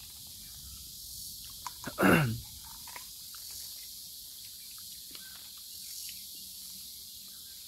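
Steady high-pitched insect chirring with faint mouth and leaf noises from eating an unripe mango off the branch. About two seconds in, one short human vocal sound slides down in pitch.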